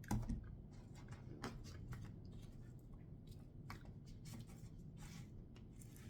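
Close-up eating sounds: chewing with scattered wet mouth clicks and lip smacks, and one louder knock right at the start.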